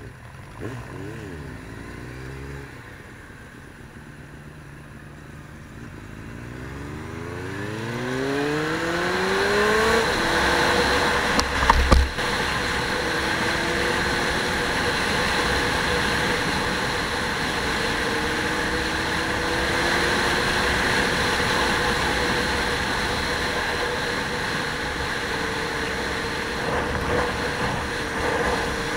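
A motor vehicle's engine revving up, its pitch rising over several seconds, then running steadily at speed with road and wind noise. A single sharp knock comes about twelve seconds in.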